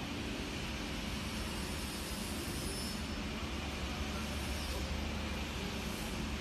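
Steady mechanical hum with a strong low drone: a refrigeration condensing unit's Bitzer semi-hermetic compressor running.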